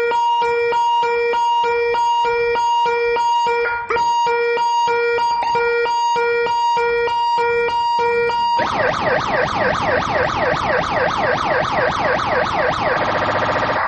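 Pied Piper 4-in-1 electronic siren on a motorbike's horn circuit, cycling through its tunes. It plays a rapidly pulsing steady tone, then switches about two-thirds of the way in to fast repeating sweeps of about four a second, and changes to another, faster pattern near the end.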